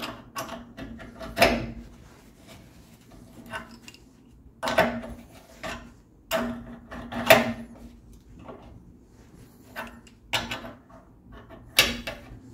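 Steel Milwaukee 8-inch adjustable wrench knocking and clinking against a bronze pipe fitting and the bench as it is handled and fitted. A series of short, sharp metallic knocks, about six louder ones a second or two apart, with lighter ticks between.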